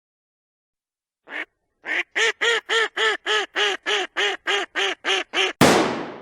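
A duck quacking in a fast, even series of about fifteen quacks, roughly four a second, after one lone quack. Near the end a single loud shotgun shot cracks out and rings away.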